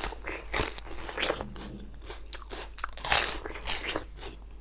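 A person biting and chewing crunchy food close to the microphone: a run of crisp crunches, loudest in a cluster about three seconds in.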